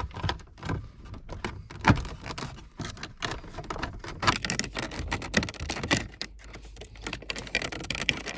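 Hard plastic dash trim clicking, knocking and scraping in quick irregular taps as a panel is worked by hand into a tight console opening. The opening is too tight for the panel to seat.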